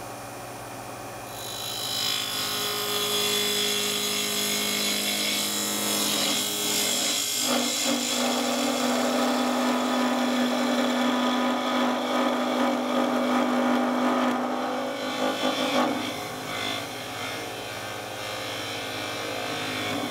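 Spindle gouge cutting a round-over on the end grain of a spinning wood blank on a lathe: a steady cutting sound that starts about one and a half seconds in and stops about sixteen seconds in. Before and after the cut, the lathe runs on its own with a low hum.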